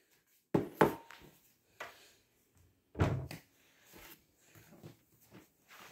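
A few separate clunks and knocks of a kitchen cupboard and a bowl being fetched, the loudest about three seconds in, followed by faint ticks.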